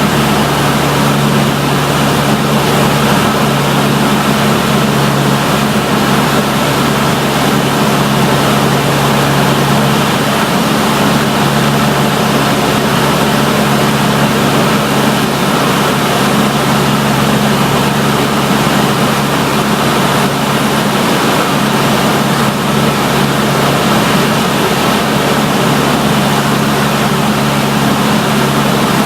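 Cessna 152's four-cylinder Lycoming engine and propeller running steadily: a low, even drone under a strong rush of wind and air noise.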